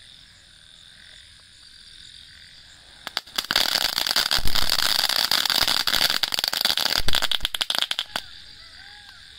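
Chatar-patar crackling firework going off: after about three seconds a dense, rapid volley of sharp crackles and pops runs for about five seconds, then stops abruptly.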